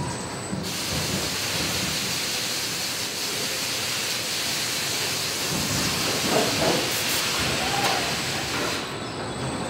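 Body-shop assembly line noise from industrial robots at a van welding station: a long, steady hiss starts suddenly just under a second in and cuts off about a second before the end, with irregular machine clatter underneath.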